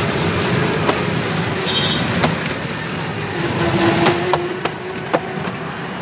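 Small fairground kiddie train running on its track: a steady rumble with scattered sharp clicks, and a brief low hum a little past the middle.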